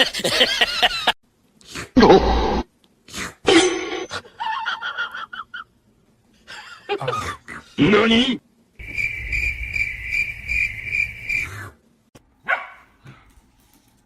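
A dog barking and vocalising, in several short clips separated by abrupt cuts. Near the middle, a steady high tone pulses evenly for about three seconds.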